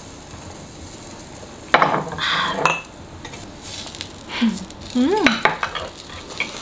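Pork belly and zucchini slices sizzling on an electric grill plate, with metal tongs clicking and scraping on the plate as the food is turned. A sharp knock comes about two seconds in.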